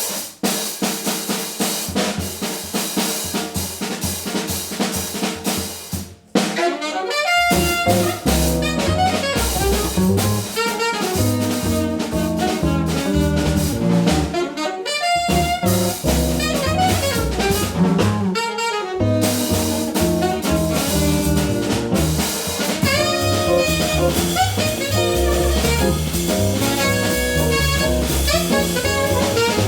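Small jazz band playing live: the drum kit alone for about the first six seconds, then saxophone and bass come in with the drums.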